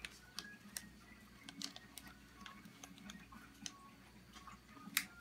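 Faint, irregular small plastic clicks and ticks from a Kinder Joy capsule and toy pieces handled in a child's fingers, with one sharper click near the end.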